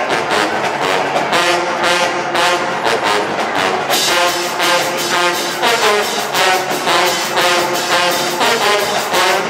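Marching band playing: a brass section holding loud chords over a steady beat of drum hits, with the sound getting brighter about four seconds in.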